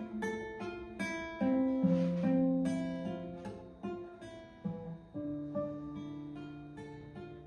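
Nylon-string classical guitar played solo: a slow plucked melody over ringing bass notes, each note struck and left to fade.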